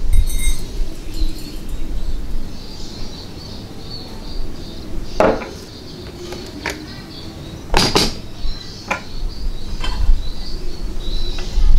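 Several sharp metal clinks and knocks from the stainless steel Vietnamese phin coffee dripper being handled, the loudest about two-thirds of the way through. Birds chirp steadily in the background.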